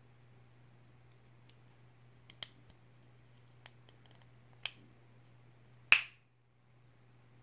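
Small hard-plastic Playmobil figure parts clicking as they are fitted together by hand: a few light clicks, then one sharp, much louder snap near the end as the head is pressed onto the torso.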